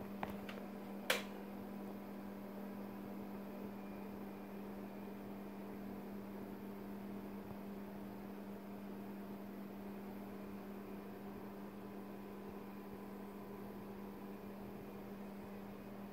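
Steady low electrical hum with a fainter higher tone above it, and one sharp click about a second in.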